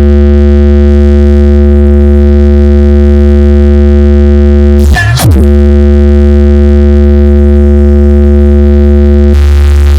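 Loud, steady synthesized bass drone with a deep buzz and many overtones, the kind of test tone used in a DJ speaker sound-check track, broken by one quick pitch sweep about five seconds in.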